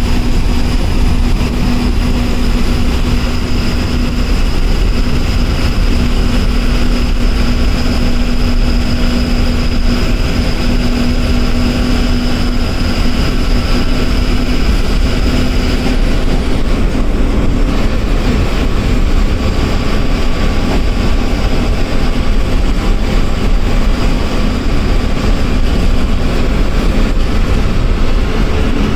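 Ordinary diesel bus heard from the driver's cabin while cruising on a highway: steady engine drone mixed with road noise. A high whine is present until a little over halfway through, then fades.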